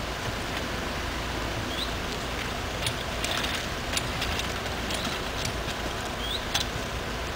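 Steady outdoor background hiss. A cluster of light clicks and ticks comes from about three to six and a half seconds in. A short rising chirp sounds twice.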